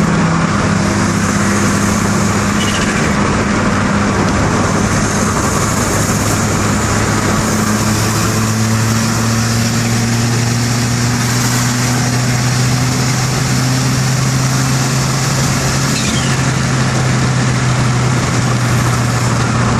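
Turbocharged car engine running at steady revs under a dense, even noise. The engine tone steps up slightly about eight seconds in, and two faint short falling whistles come through, one early and one late.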